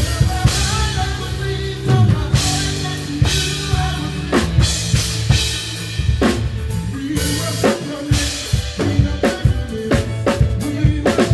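Live band playing a song led by a drum kit: steady kick and snare hits with cymbal crashes every couple of seconds, over held bass and keyboard notes.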